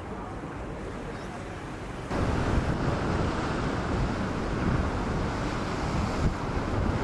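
Steady rushing outdoor noise, like wind or surf, with no clear tones. It jumps louder all at once about two seconds in.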